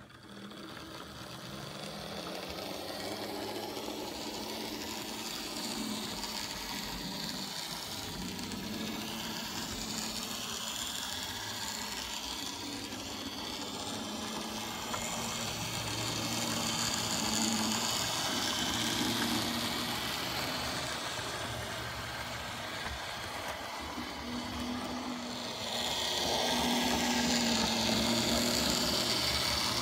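Model railway diesel locomotive and its coaches running along the track: a steady mechanical drone with a hum and a rail hiss that swells louder around the middle and again near the end.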